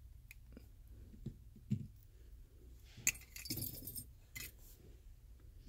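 Small plastic clicks and clinks of an opened Toyota smart-key fob being handled, its circuit board and coin-cell holder set down. The sharpest click comes about three seconds in, followed by about a second of scratchy handling noise and another click.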